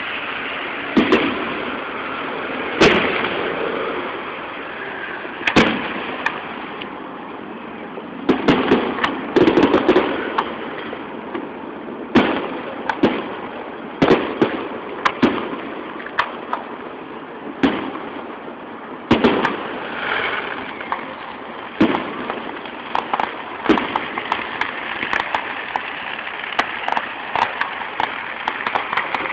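Aerial fireworks shells bursting: a run of sharp bangs every second or two, some in quick clusters, over a steady background hiss.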